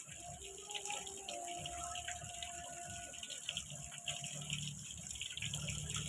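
Garden fountain spray splashing steadily onto a pond surface, with a low hum building near the end.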